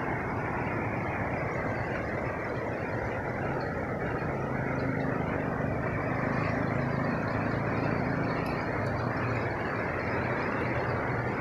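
Steady rushing of water from a natural waterfall and stream, an even noise without breaks.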